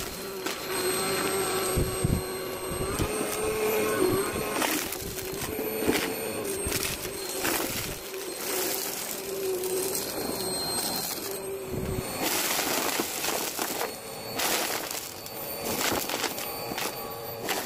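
Vacmaster upright bagless vacuum cleaner running steadily with a constant hum, sped up to double speed. Confetti, foil and balloon scraps crackle and rattle irregularly as they are sucked up into the clear dust bin.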